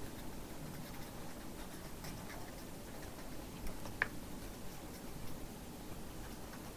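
Faint scratching and light ticks of a pen writing on paper, with one sharper click about four seconds in.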